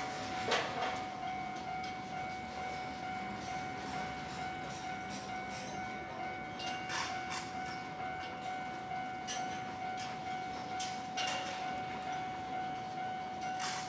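Train running through a station, a steady rumble with a steady high tone throughout and a few short sharp clanks along the way.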